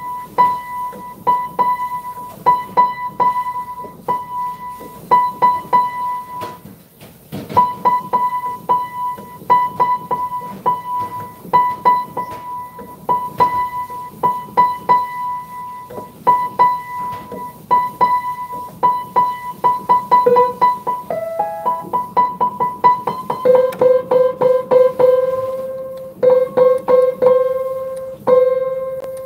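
Upright piano being tuned: one high note, near 1 kHz, struck again and again about three times a second while its tuning pin is turned with a tuning hammer. In the last third a note an octave lower is sounded with it, the two played together as an octave.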